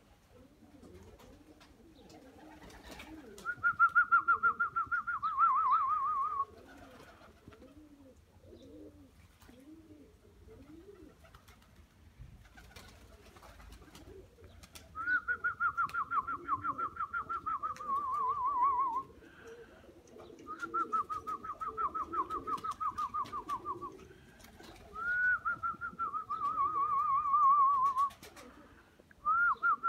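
A trilled whistle in repeated bursts of three to four seconds, each trill sliding a little lower in pitch, five times over, with pigeons cooing softly in the gaps.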